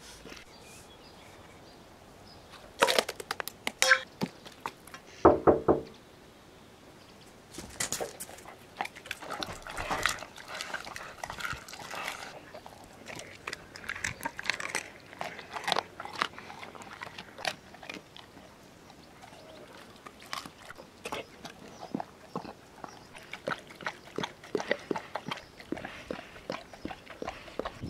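A Weimaraner eating raw food from a stainless-steel bowl: irregular wet chewing, crunching and licking clicks. The loudest moment is a cluster of sharp knocks with a brief ringing tone about three to six seconds in.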